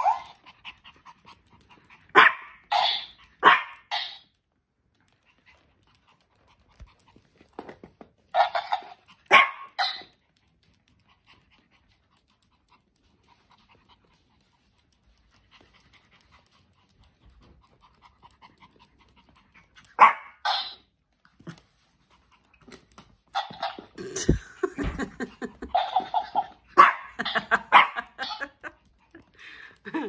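Pomeranian barking in several short bursts, separated by long quiet gaps, with the busiest run of barks near the end.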